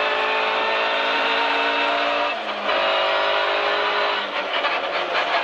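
Škoda Fabia A1400 rally car's engine running hard at high revs, heard from inside the cabin, with a short break in the engine note about two seconds in, as at a gear change. From about four seconds in the engine eases off and knocks and rattles from the rough loose road surface come through.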